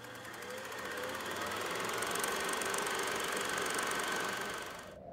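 A machine running with a fast, even clatter and a faint whine, swelling in level and then cutting off abruptly near the end.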